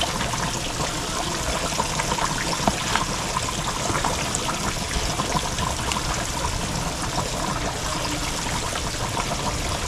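Battered speckled trout deep-frying in hot oil: a steady sizzle with continual small crackles and pops.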